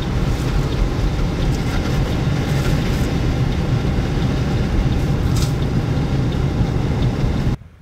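Steady road and wind noise inside a moving car, with a heavy low rumble and a few faint ticks; it cuts off suddenly near the end.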